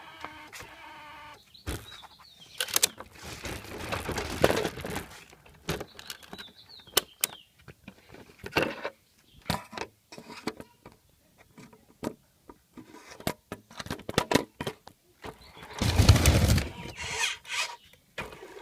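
A toy RC car's small electric motor whirring in short stop-start bursts, with many clicks and knocks. There is a louder burst about sixteen seconds in.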